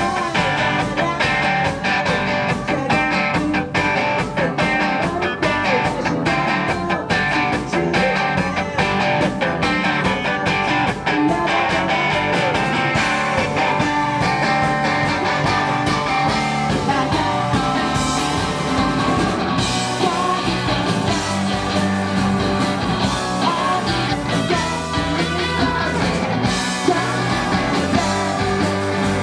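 Live rock band playing electric guitars and drums with a male singer. The drumming is dense, with many cymbal and drum hits through about the first half.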